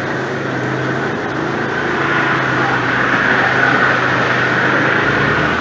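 Land Rover Defender 110's TD5 five-cylinder turbodiesel engine running steadily under load as the truck churns through deep mud ruts on 37-inch mud-terrain tyres.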